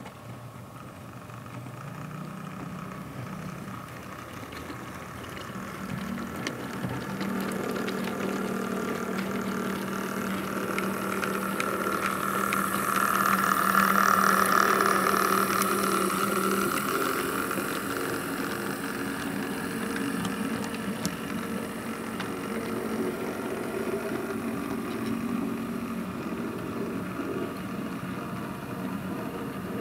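OO gauge model diesel locomotive hauling a rake of open wagons along the track, a steady engine-like drone with light wheel clicking. It grows louder as the train passes close about halfway through, then fades as it runs away.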